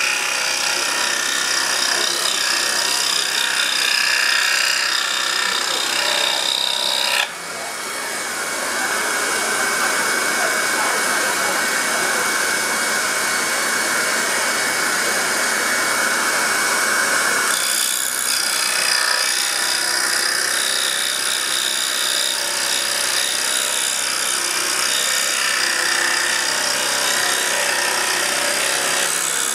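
Pégas scroll saw running, its reciprocating blade cutting through a thick wooden block. About seven seconds in the cut stops and the saw runs without a workpiece for about ten seconds, then the blade bites into the wood again.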